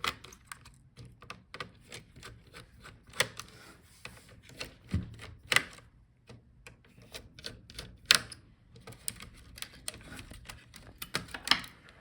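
Scattered small clicks and taps of a screwdriver and fingers working on a laptop's heatsink and cooling fan assembly as it is unfastened, with a few sharper clicks standing out.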